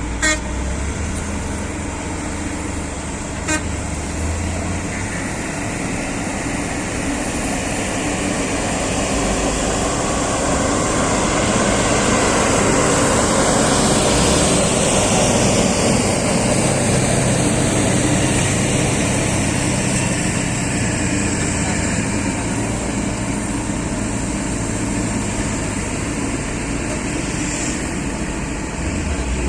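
Heavy diesel engine of an excavator running under load. It swells gradually to its loudest around the middle, then eases off. Two short sharp clicks come in the first few seconds.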